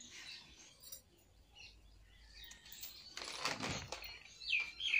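Birds chirping, with a run of short downward-sliding calls near the end. About three seconds in there is a brief louder rustling swish.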